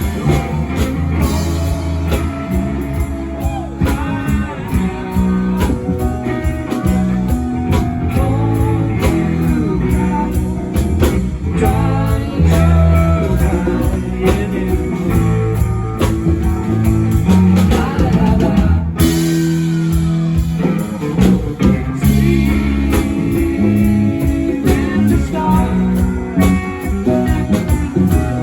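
A live rock band playing: guitar over bass and drum kit, with some singing.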